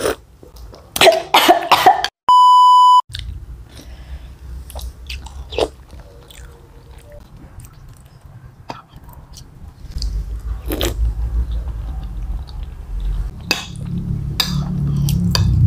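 A person coughs a couple of times just after sipping hot, spicy meatball broth, followed by a short, steady, high beep tone. Then soft eating sounds: chewing and slurping with small clicks from spoons and chopsticks, over a low rumble that grows louder toward the end.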